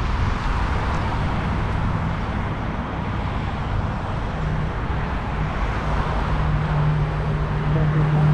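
Road traffic and wind noise on the microphone of a moving bicycle. About halfway in, a vehicle's low, steady engine drone comes in and grows louder toward the end as it approaches.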